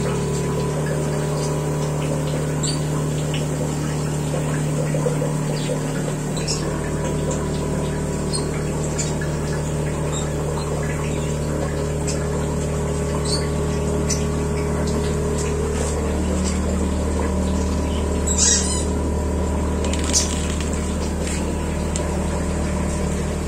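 Boyu ACQ-906 12-volt DC diaphragm air compressor running with a steady hum while it aerates aquarium tanks, with air bubbling and small splashes at the water surface.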